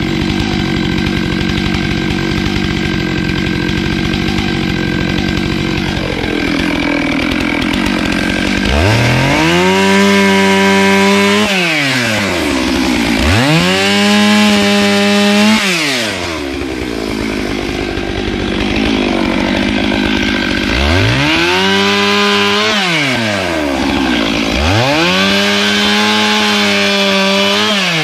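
Stihl chainsaw running, then revved to full throttle four times as it cuts into a log. Each rev is held about two to three seconds before the engine drops back to idle.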